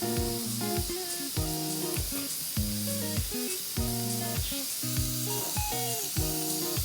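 Pork belly sizzling steadily on a hot skillet, under background music with a steady beat.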